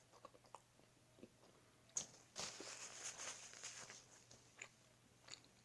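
Faint close-miked eating sounds of a sausage dog being eaten: small mouth ticks, a sharper bite about two seconds in, then a second or two of chewing.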